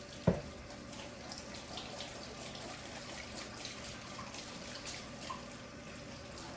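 Kitchen sink faucet running in a steady rush as hands are washed under it. One sharp knock just after the start is the loudest sound.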